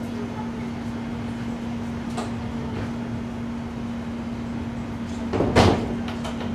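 Steady hum inside a standing electric suburban train. About five and a half seconds in, a sliding passenger door shuts with a short, loud thud.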